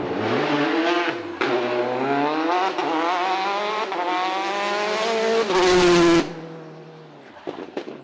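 Peugeot 208 rally car engine at high revs, climbing in pitch through several quick gear changes as the car accelerates towards the listener. It is loudest as it passes close, about six seconds in, then drops away abruptly, with a few sharp pops near the end.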